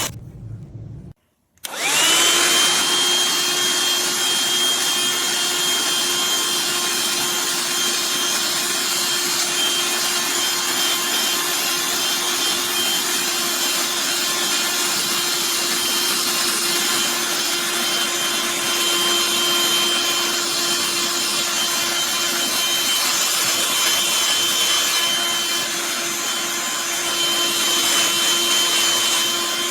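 Black+Decker Dustbuster cordless handheld vacuum switched on and running: its small motor starts about two seconds in, then runs steadily with a high whine over a rushing hiss.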